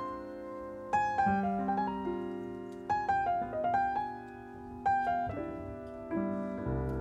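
Piano playing the opening of a romance: phrases of struck notes begin about every two seconds, each note ringing and fading.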